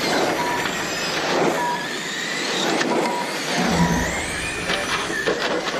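R/C race cars running laps on an asphalt track, their motors whining up and down in pitch as they pass. A short beep repeats about once a second, and there is a brief low rumble about two-thirds of the way through.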